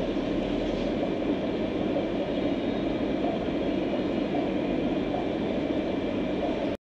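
Steady bubbling and hum from an air-driven sponge filter in a goldfish aquarium, stopping suddenly near the end.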